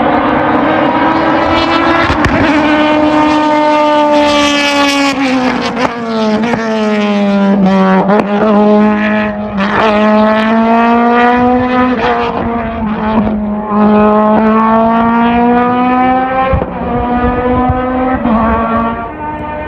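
A hillclimb race car's engine running hard, its pitch dropping and then rising again as the driver lifts and gets back on the throttle through the corners. Several sharp cracks sound over the engine note.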